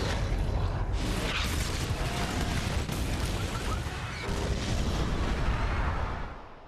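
Disaster-film sound effects of a city being destroyed in an earthquake: a dense, continuous rumble with crashing booms and explosions. It fades out near the end.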